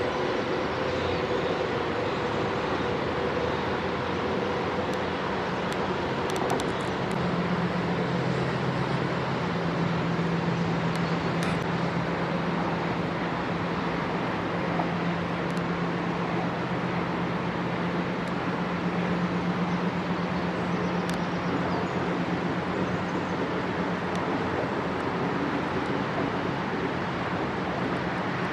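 Electric train running steadily: a continuous rush of running noise, with a steady low hum that sets in about seven seconds in.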